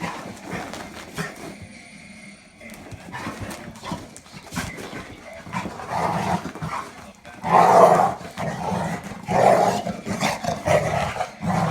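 Two pit bulls play-fighting, barking and growling in irregular short bursts that are loudest in the second half.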